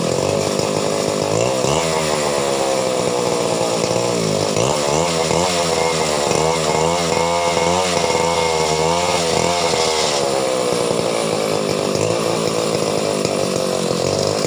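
Chainsaw engine running at high revs throughout, its pitch repeatedly sagging and recovering, as it does when the chain is loaded in a cut.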